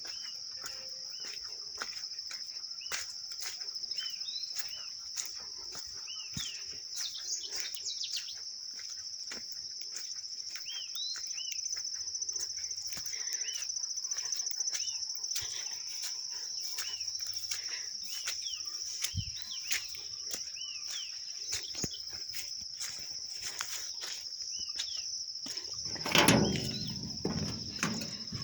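Steady high-pitched insect chorus with many short, repeated bird chirps over it and scattered light clicks. A brief louder burst of noise comes near the end.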